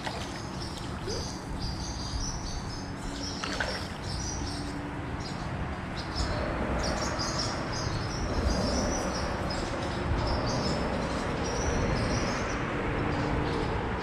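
Small birds chirping repeatedly in short high notes, over a steady outdoor background hiss that grows slightly louder about six seconds in.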